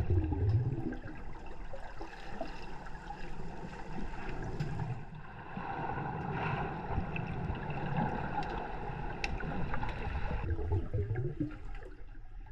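Underwater ambience picked up by a diver's camera: muffled water movement and gurgling, with scattered faint clicks and low surges of water noise near the start and again near the end.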